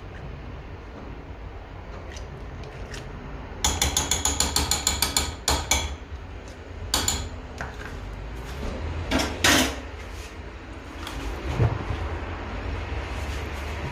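A quick run of about a dozen ratcheting clicks, some eight a second, then a few scattered clicks and knocks and a brief scrape.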